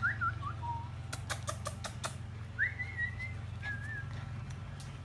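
Five-week-old puppies whining: thin, high, wavering whines, one at the start falling in pitch and another about two and a half seconds in. A few sharp clicks come between about one and two seconds in.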